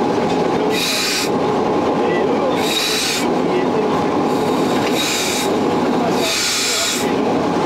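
Cab noise of the 1932 Sécheron T9 electric locomotive on the move: a steady running rumble from wheels and machinery. Four short hissing bursts break in, roughly every two seconds.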